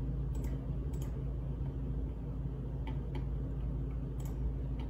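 About six sharp, isolated clicks from a computer mouse, clicking and scrolling through a dropdown list, over a steady low hum.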